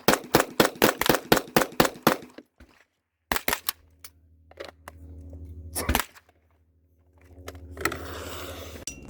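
Gunfire: a quick string of about ten shots in the first two seconds, then a pause and a few more single shots.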